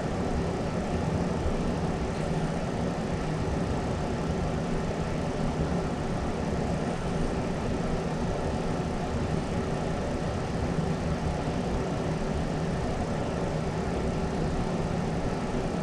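Steady mechanical hum with a low drone and a few held tones, unchanging throughout.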